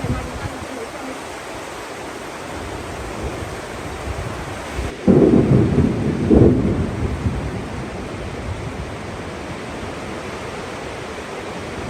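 Heavy rain pouring steadily, with a loud low thunder rumble breaking in about five seconds in. The rumble lasts about two seconds, with two peaks, and then fades back into the rain.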